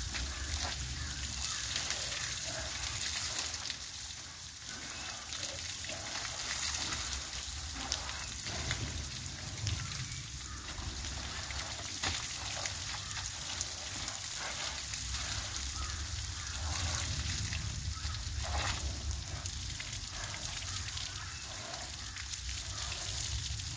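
A jet of water spraying onto an elephant's side and splashing onto the ground: a steady hiss of spray over a low rumble.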